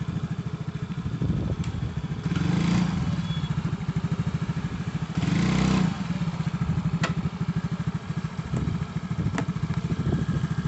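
Yamaha Mio J scooter's single-cylinder four-stroke engine running at idle with a steady, rapid low pulsing, getting briefly louder twice. It has just been rebuilt with a Honda Revo Absolute piston to stop it from smoking.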